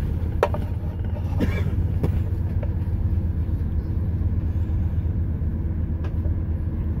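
Steady low rumble of a train running, heard inside the passenger carriage, with a few light clicks.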